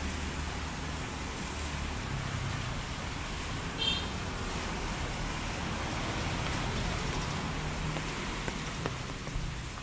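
Steady hiss of light drizzle falling on leaves and grass, over a low rumble of road traffic. A brief high chirp sounds about four seconds in.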